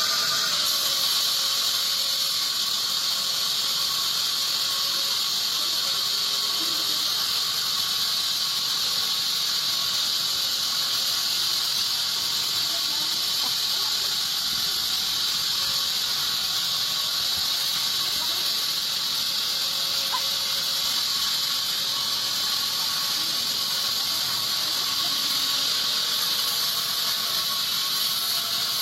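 Band sawmill blade ripping lengthwise through a teak log: a steady, high-pitched squealing whine over a hiss.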